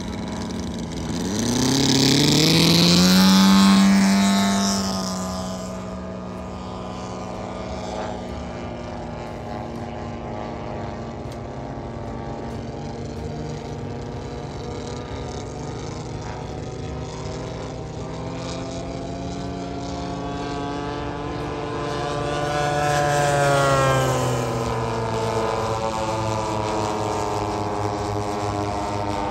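Piston engines of a twin-engine vintage warbird droning in flight overhead. The drone swells loud with its pitch rising a couple of seconds in, settles, then swells again near the end with its pitch dropping as the aircraft passes.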